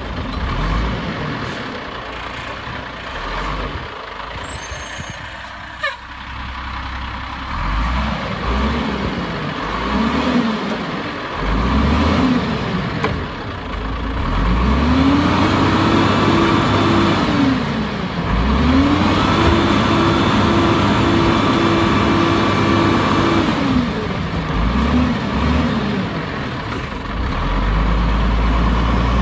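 Automated side-loader garbage truck's diesel engine revving up and down over and over, typical of the engine being run up to drive the hydraulic lift arm, and twice held at high revs for a few seconds in the second half. A brief knock about six seconds in.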